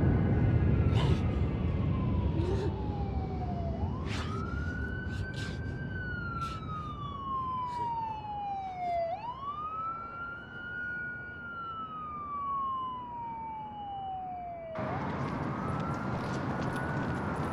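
Emergency vehicle siren on a slow wail: the pitch sweeps up quickly and then falls slowly, about every five seconds. A few sharp clicks sound in the first few seconds, and the background noise rises suddenly near the end.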